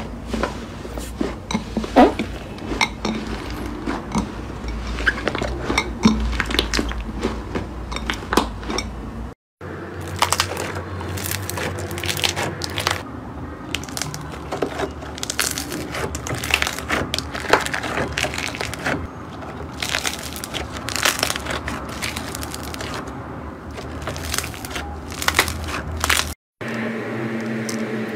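Hands kneading, squeezing and pressing slime, first fluffy and then clear and glossy: a steady stream of small squelching clicks, pops and crackles. The sound breaks off for a moment twice, where one slime clip gives way to the next.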